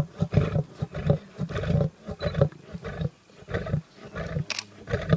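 Lions growling while feeding at a kill: a run of short, rough growls several times a second, loudest in the first couple of seconds and weaker after that.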